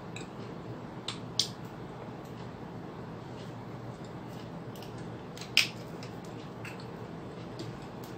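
A few sharp clicks and crackles from a small plastic water bottle being handled and its cap twisted open, over a steady background hiss. The two loudest come about a second and a half in and again four seconds later.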